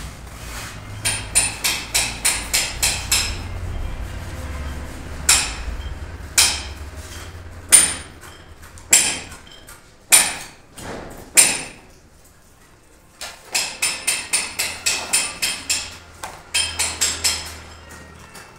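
Hammer blows ringing on metal: quick runs of about four blows a second, with single louder blows about a second apart in between.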